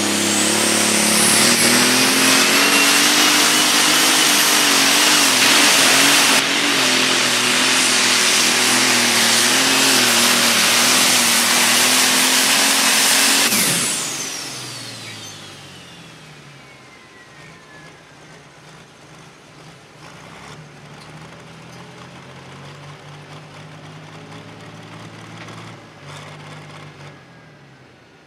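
John Deere 4455 pro stock pulling tractor's diesel engine at full throttle under load pulling the sled, loud and steady, with a high turbo whine that climbs at the start. A little past halfway the throttle is cut, the engine drops to a low idle and the turbo whine slides down as it spools down.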